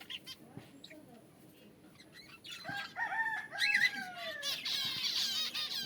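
A rooster crows once, starting about two and a half seconds in and ending in a long falling note, over a chorus of small birds chirping busily.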